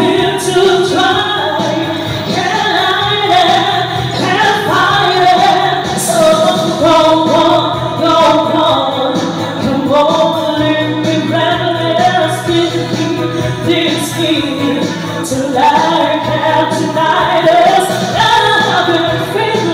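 A woman singing into a handheld microphone over musical accompaniment, her voice amplified and carrying the melody throughout.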